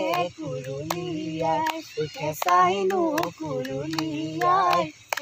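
A young woman singing a song unaccompanied, with hand claps keeping a steady beat under the long held notes.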